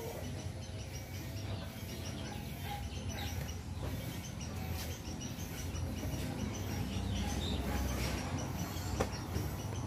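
A steady low mechanical hum, with faint bird chirps over it and one sharp click about nine seconds in.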